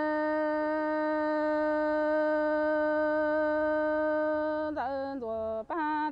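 A woman singing unaccompanied in traditional Hmong style. She holds one long, steady note for about four and a half seconds, then steps down through a run of short notes with brief breaks between them.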